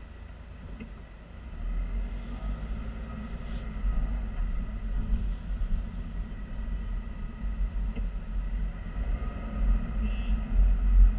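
Car cabin rumble of engine and tyre noise while driving, heard from inside the car. The rumble grows louder about a second and a half in as the car gets moving, and stays steady from then on.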